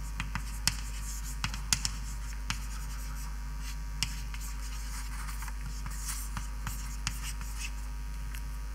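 Writing on a board: scattered sharp taps and short scratchy strokes, over a steady low mains hum.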